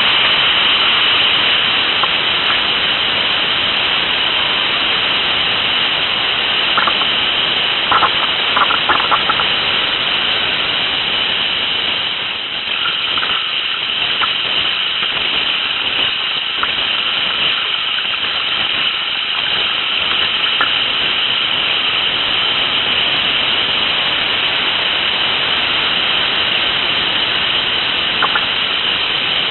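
Whitewater rapids rushing over a rocky riverbed: a constant, loud hiss of fast water, with a few brief clicks about eight seconds in.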